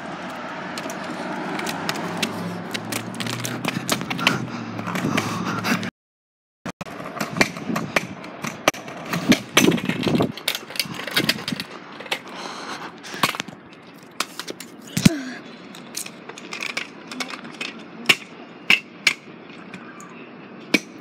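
A steady rushing rumble for about six seconds, then, after a brief dropout, a run of sharp clicks, knocks and scrapes: a phone being handled and set down on the ground.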